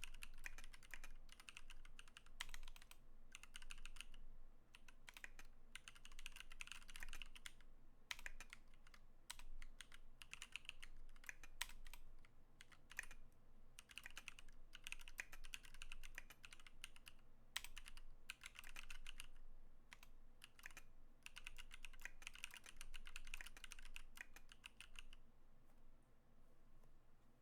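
Typing on a KBDfans KBD19x mechanical keyboard with lubed Holy Panda tactile switches: quick runs of key clicks in bursts with short pauses, the typing stopping a couple of seconds before the end.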